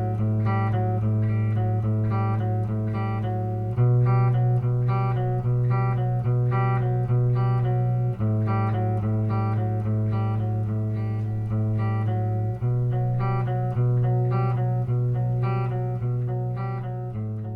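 Instrumental guitar music: plucked notes over a held bass note that changes about every four seconds, beginning to fade out near the end.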